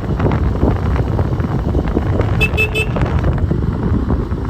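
Loud, rumbling outdoor noise, with three quick toots of a vehicle horn a little over halfway through.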